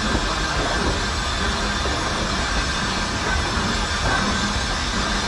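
0-4-0T saddle-tank steam locomotive running with its coaches: a steady rumble and hiss with rail clatter.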